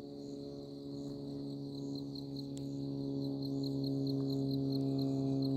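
Crickets chirping in a steady rhythm of about four chirps a second, under a steady low mechanical-sounding hum with several overtones that grows louder throughout.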